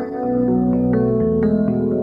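Background music: a gentle melody of separate notes over held chords.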